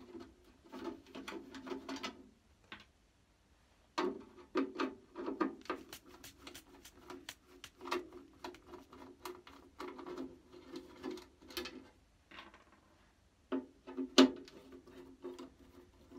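Screwdriver turning out the cover screws of a NAD 602 cassette deck's sheet-metal case: a run of quick clicks with a low ringing of the metal cover. There are two short pauses, and one sharp knock near the end.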